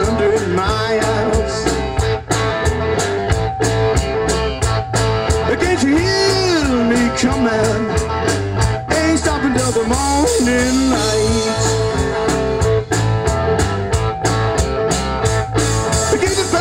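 Blues-rock song played by a band: guitar with gliding, bending notes over a steady drum beat.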